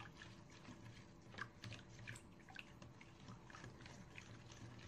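Faint, irregular light clicks and small liquid sounds of a whisk stirring a milk-and-spice marinade in a mixing bowl.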